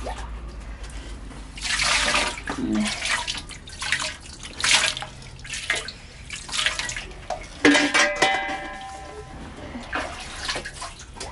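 Water poured in several separate splashing pours from a metal cup into a large aluminium raksi-still vessel. About two-thirds of the way in, a metallic clank rings briefly.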